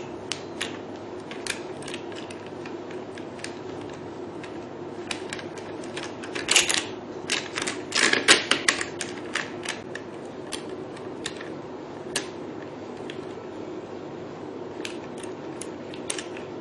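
Irregular light clicks and knocks of a metal handle and its holder being handled and fitted onto a beauty machine, busiest in the middle, over a low steady hum.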